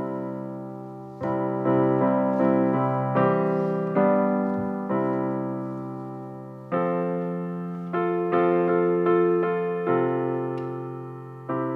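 A piano plays slow chords, each struck and left to fade, over a held low bass note.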